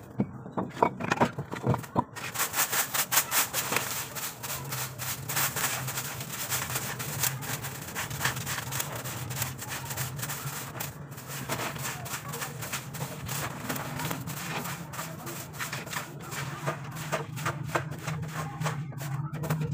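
Broom sweeping the dirt floor of a brick chicken coop: quick, repeated scraping strokes that stir up dust. A steady low hum comes in about five seconds in.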